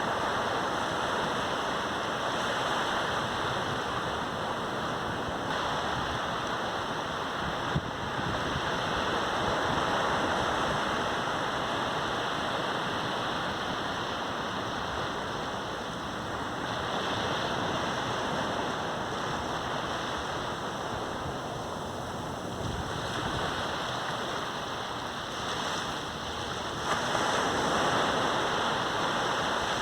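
Sea waves breaking and washing up on a sandy beach: a steady rush of surf that slowly swells and eases, with a louder wave near the end.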